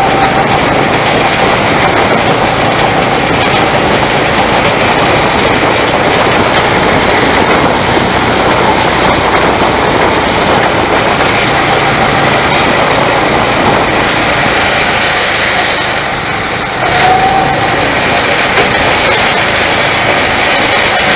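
A go-kart's engine running at speed, heard from on board, with a steady rush of road and wind noise. About three-quarters of the way in it eases off for a moment, then picks up again with a short rising whine.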